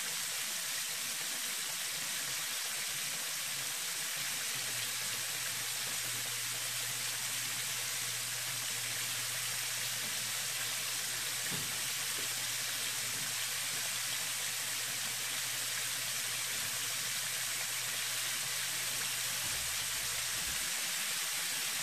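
Battered chicken tenders deep-frying in hot oil in a stainless steel skillet: a steady, even sizzle. A faint low hum joins it from about four seconds in until near the end.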